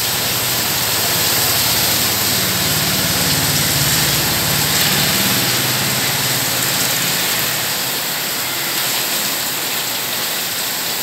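Heavy rain pouring onto a wet road and puddles, a steady hiss. A motor vehicle's engine runs low beneath it from about a second in, fading out at around eight seconds.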